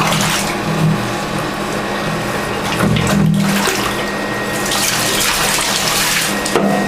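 Tap water running steadily and splashing into a bath, with a few louder surges.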